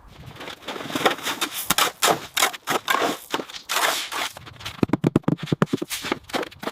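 Rough scraping of a hand tool with many sharp knocks, and a quick run of rapid strokes about five seconds in.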